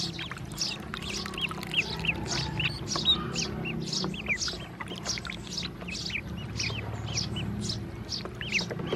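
Ducklings peeping continuously, many short high peeps overlapping at several a second.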